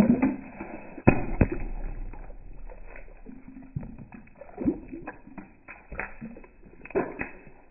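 Plastic tubes of red liquid bursting under a car tyre: a sharp pop about a second in, then scattered pops and wet splatters as the contents squirt out.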